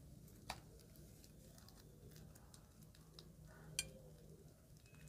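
Near silence over a low steady hum, with two sharp clicks, one about half a second in and a louder one near four seconds in, from a plastic piping bag being squeezed out over crunchy white beads in a glass dish.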